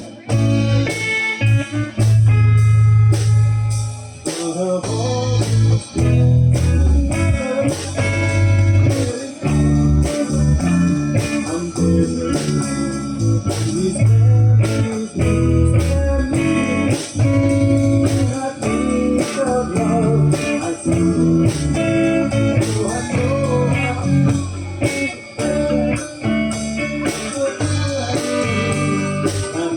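Live rock band playing an instrumental passage: electric guitar over bass guitar, with a steady beat of drum hits.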